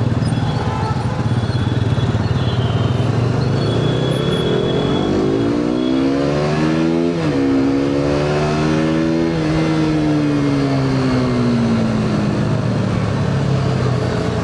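Motorcycle engine running under way. Its pitch climbs for a few seconds, jumps about seven seconds in, then falls away over the next few seconds.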